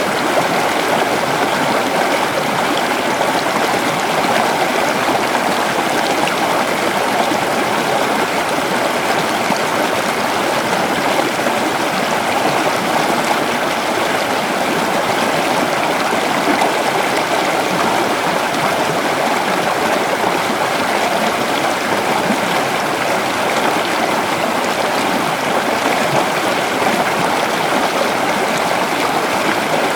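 River water flowing and babbling steadily over stones, an even rushing with no breaks.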